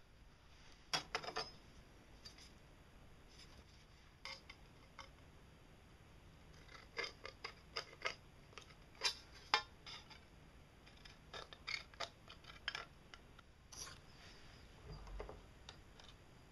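Tin snips cutting thin sheet metal: clusters of sharp snipping clicks with quiet pauses between them.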